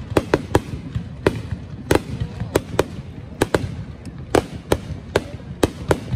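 Fireworks display: a rapid, irregular string of sharp bangs from bursting shells, about two to three a second, over a steady low rumble.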